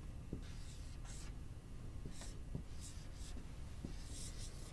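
Dry-erase marker writing numbers on a whiteboard: a series of short, separate scratchy strokes with faint squeaks.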